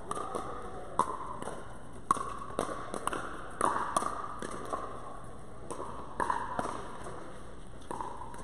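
Pickleball paddles striking a hollow plastic pickleball during a rally, a sharp pock about every half second to second, echoing in a large indoor court hall.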